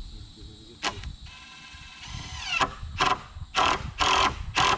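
Power drill driving a screw into a wooden 2x6 board: the motor whines up in pitch, then runs in about five short bursts as the trigger is pulsed.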